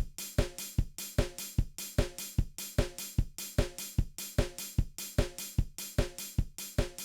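A steady drum beat: kick and snare with hi-hat and cymbal, in an even, machine-like pattern of about two to three hits a second.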